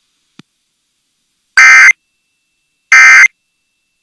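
Emergency Alert System SAME end-of-message signal: short identical bursts of the buzzing two-tone digital data code, two of them about 1.3 s apart with a third starting right at the end, closing out a test alert.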